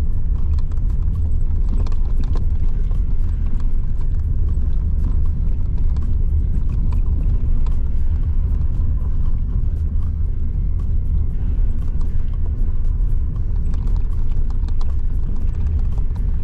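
Maruti Suzuki Ignis driving on a rough mountain road, heard inside the cabin: a steady low rumble of road and engine noise with frequent small clicks and rattles.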